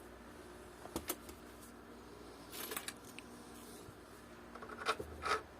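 Small hardware being handled by hand: a few sharp clicks about a second in, a brief rustle midway, and two louder clicks with short rattles near the end.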